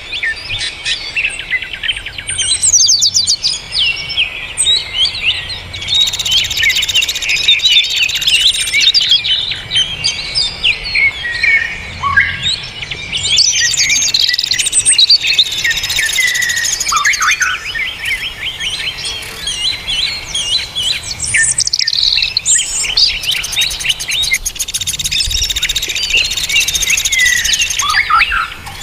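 Dense chorus of many songbirds singing and chirping at once: rapid overlapping trills, whistles and chatter with no pause. It is a 'masteran rapat' (dense tutor-song) recording used to train young or contest songbirds.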